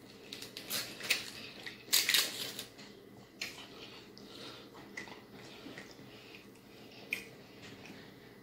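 Plastic lid being peeled off a small marinara dipping-sauce cup and the cup handled, giving short crinkles and clicks, loudest about two seconds in, with lighter ticks after.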